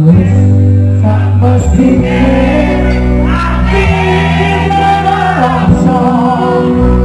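A male singer sings into a microphone over a live band of electric guitar, bass guitar and keyboard, with sustained bass notes underneath. The vocal line comes in strongly about two seconds in.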